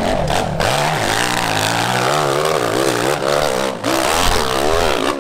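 Dirt bike engine revving hard under load on a steep climb, its pitch swinging rapidly up and down as the throttle is worked.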